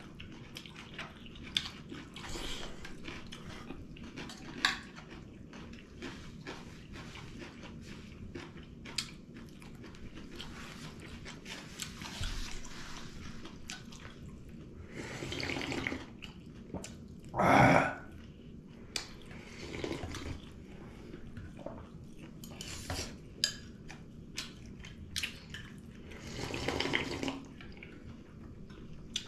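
Close-up eating sounds: many small clicks of chewing and lip smacks, and a spoon tapping on steel plates and a bowl, with a few louder slurps of soup, the loudest about two-thirds of the way through.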